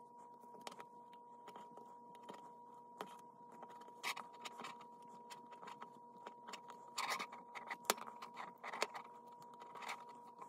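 Scattered light clicks, taps and scrapes of hand work with a knitting loom, needle and yarn, louder around four seconds in and again from about seven to nine seconds. A faint steady hum lies underneath.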